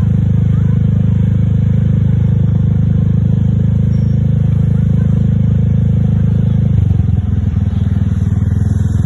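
A motor vehicle engine running close by: a steady low rumble that turns rougher about seven seconds in. No bus horn sounds.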